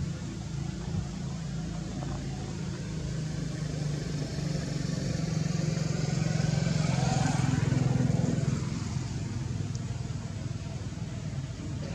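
A motor vehicle's engine running, growing louder to a peak about seven to eight seconds in and then fading as it drives past.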